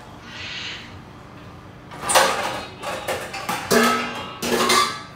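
A brief plastic rustle, then from about two seconds in a kitchen drawer or rack slides and dishes clatter and scrape as a plate is taken out.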